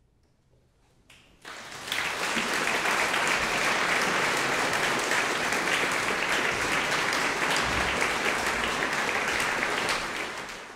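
Audience applause: after about a second and a half of near silence, clapping breaks out, quickly builds and holds steady, then fades out at the end.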